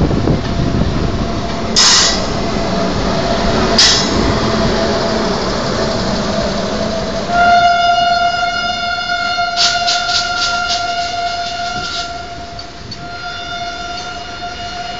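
Indian Railways trains running at speed: a heavy rail rumble with two sharp clatters about two and four seconds in. About seven and a half seconds in, the rumble falls away and a locomotive horn sounds one long steady blast, breaking off briefly near the end.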